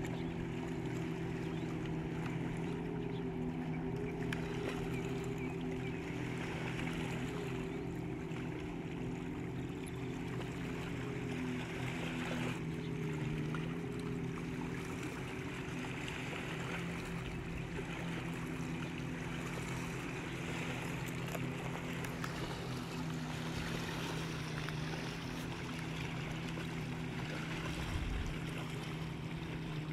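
Steady motor hum made of several held tones that waver slightly, running evenly throughout, over a soft hiss.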